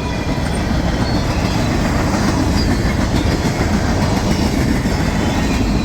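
Freight cars of a long mixed freight train rolling past: a steady, loud noise of steel wheels on the rails.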